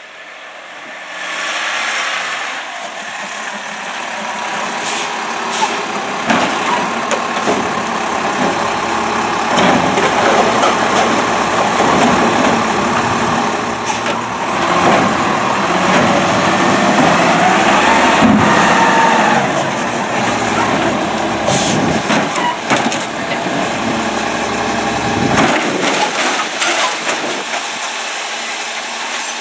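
Automated side-loader garbage truck emptying a wheeled cart: the engine revs up to drive the lifting arm's hydraulics, with a rising and then falling whine as the cart is tipped over the hopper. Sharp clunks of the cart and arm knocking against the truck come through, and the deep engine rumble drops away near the end as the arm comes back down.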